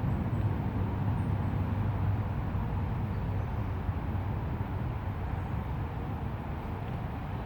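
River water rushing steadily over rocks, a constant low wash.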